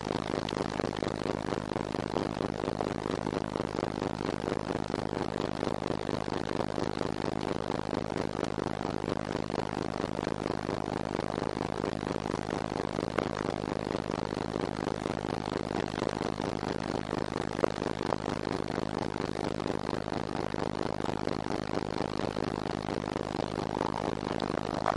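Ship's engine droning steadily while sea ice grinds and scrapes along the hull as the icebreaker pushes through it, with a sharper crack here and there.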